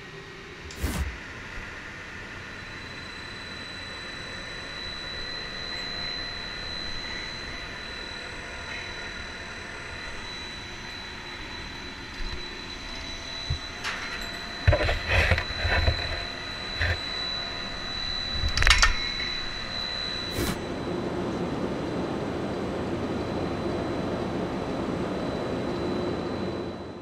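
Drilling rig machinery running steadily with a thin high whine, broken by sharp metal clanks and knocks, several in quick succession around the middle, the loudest of them there.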